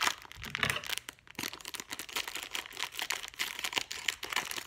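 A clear plastic bag crinkling and rustling as it is handled and cut open with scissors, in irregular crackly bursts.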